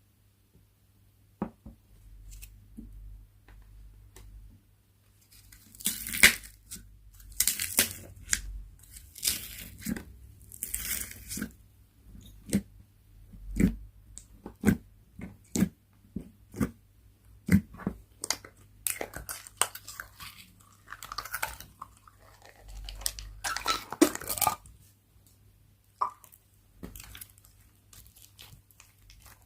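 Slime being kneaded and stretched by hand: repeated bursts of crackling and popping with sharp clicks, starting after a quiet first second or so.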